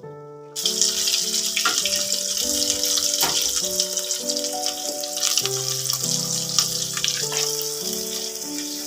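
Kitchen tap turned on, water running steadily into a sink with some splashing, over soft background music.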